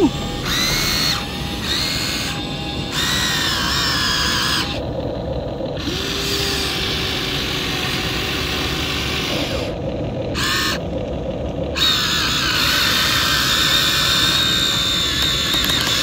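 Electric motors of a Huina remote-control toy excavator whining in stop-start stretches as the boom, arm and bucket move, the pitch rising and falling with each movement.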